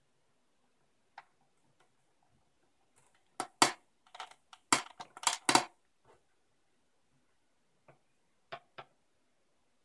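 Small hard objects being handled and set down: scattered sharp clicks and clacks, with a quick loud cluster of them about three and a half to six seconds in and a couple more near the end.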